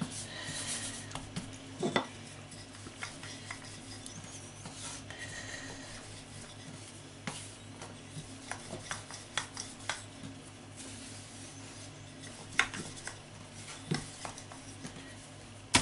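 Wooden rolling pin rolling out a round of shortcrust pastry on a floured worktop: soft rolling and rubbing with scattered light knocks and clicks, over a low steady hum.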